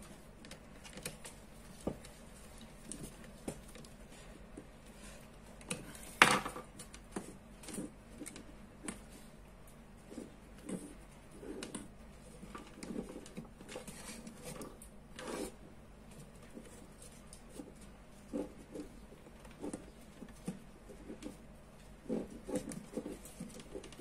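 Scattered small clicks and taps of hands handling a plastic wall switch and bending a red wire into its terminals, with a sharper knock about six seconds in and another near the middle.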